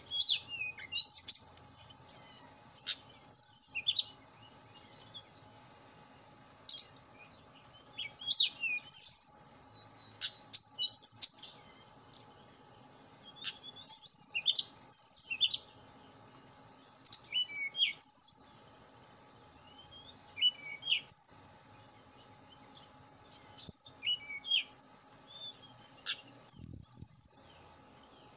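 Hill blue flycatcher (tledekan gunung) singing: short, high, sweeping whistled notes and chirps in separate phrases, one every second or two.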